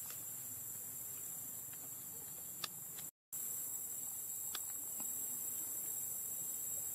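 Steady high-pitched chirring of insects, with a few faint clicks; the sound cuts out completely for a moment about three seconds in.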